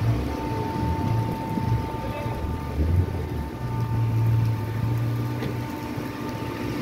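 Road traffic on a rain-wet city street: a low engine rumble that swells a couple of times, over a steady hum.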